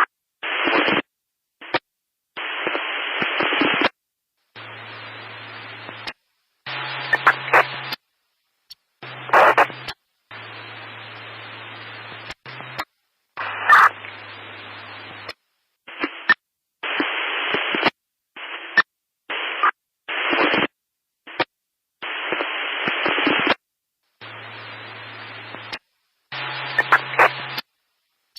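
Static noise: bursts of hiss of uneven length that cut in and out abruptly with silent gaps between them. Some bursts carry a low hum underneath, and a few brief crackles stand out.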